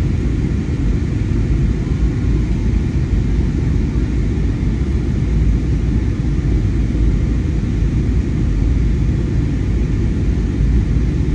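Steady Airbus A320 cabin noise in flight: a dense, even low rumble of engines and airflow, with a few faint steady tones above it.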